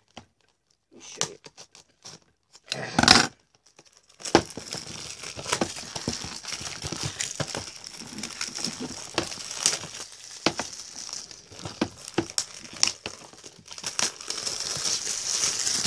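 Plastic shrink-wrap being torn and peeled off a DVD case: a brief loud tear about three seconds in, then continuous crinkling with many sharp crackles from about four seconds on.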